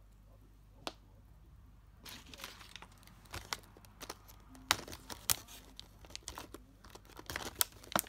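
Thin clear plastic packaging film being pulled open and handled, crinkling with a dense run of sharp crackles and snaps that starts about two seconds in, after a single click about a second in.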